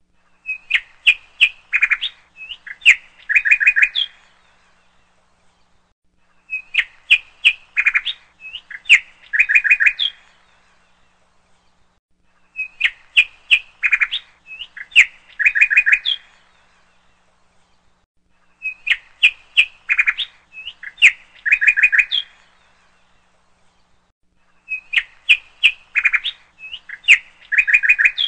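Songbird chirping: a rapid phrase of high chirps and trills lasting about three and a half seconds, repeated the same way five times about every six seconds, with silence between the phrases.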